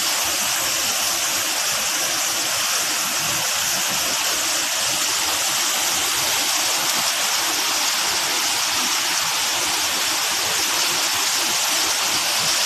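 Waterfall: a steady rush of falling water, with an even hiss strongest in the high range and no change in level.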